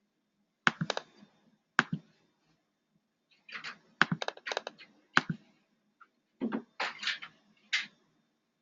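Irregular sharp clicks and taps, coming in small clusters with short pauses between them.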